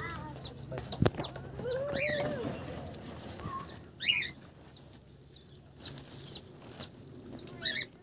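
Mixed aviary birds calling: a steady run of short, high chirps that slide downward, about two a second. A chicken gives a drawn-out, lower clucking call about two seconds in, and sharper, louder calls break in at about four seconds and near the end.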